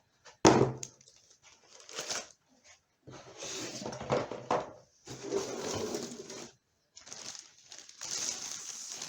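A sharp knock, then several stretches of rustling and handling as laptop packaging is opened.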